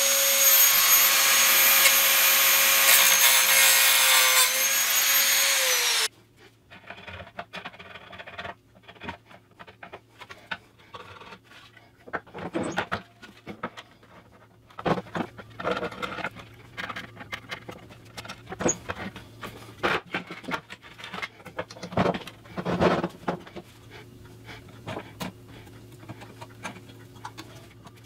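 Handheld high-speed rotary tool grinding wood at a cabinet door's broken joint to clean up the break: a loud, steady high whine that drops slightly in pitch near its end and stops abruptly about six seconds in. After that come scattered knocks and scrapes of the wooden door and loose pieces being handled on a workbench.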